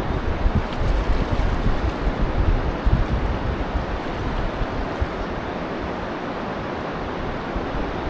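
Steady rush of river water, with wind buffeting the microphone in gusts that ease off after the first few seconds.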